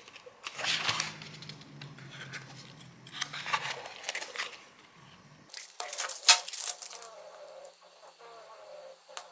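A small cardboard box of curtain hooks and paper receipts handled at a desk: the box flap opened by hand and paper rustled and smoothed flat, in three bursts of crinkling and scraping, the loudest about six seconds in.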